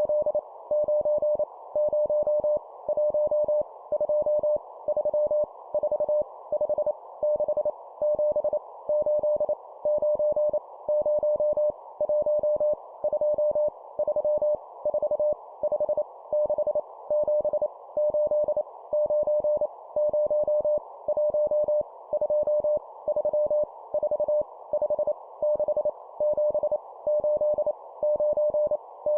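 Morse code (CW) sent at 25 words per minute: a single steady tone keyed on and off in dots and dashes, spelling out numbers. A faint, narrow hiss runs underneath, like a receiver's band noise.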